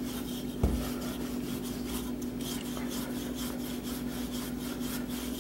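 Wooden rolling pin rolling over laminated puff pastry dough on a floured wooden board: a soft, repeated rubbing rasp, with a single knock a little over half a second in. A steady low hum runs underneath.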